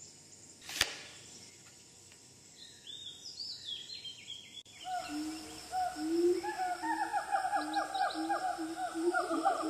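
Quiet outdoor background with a single click and faint high bird chirps, then, after an abrupt cut about halfway through, outro music starts: a rapid, warbling run of repeated pitched notes that grows louder.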